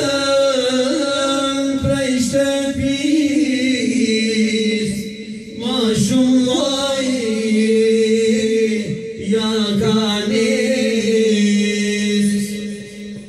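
A man sings an unaccompanied Albanian Islamic devotional song (ilahi) into a microphone, amplified through a PA system. He draws out melismatic lines, breaks off briefly about five seconds in, then holds a long steady note before stopping near the end.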